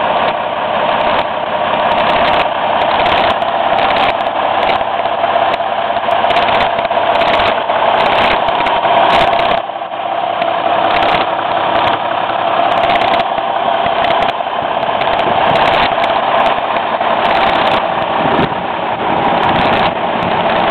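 The diesel engine of a 1951 Ford F100 idling steadily.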